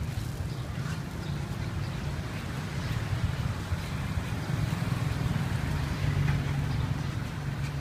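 Street noise: a steady low engine hum of passing traffic, with faint scattered clicks.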